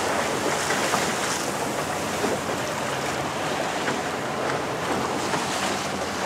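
Ocean surf washing and breaking against rocky sea cliffs, a steady rush of water, with wind buffeting the microphone.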